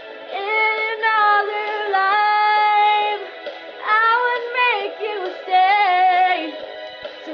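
A girl singing a pop chorus solo, holding long notes and sliding through quick vocal runs about four and six seconds in.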